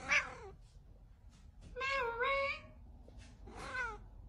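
Tabby cat meowing three times: a short falling meow, a longer drawn-out one about two seconds in, and another short falling meow near the end.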